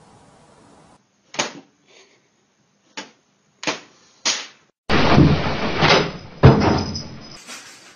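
Four sharp knocks spread over about three seconds, then a couple of seconds of loud clattering and banging with one heavy bang, the loudest sound, near the end.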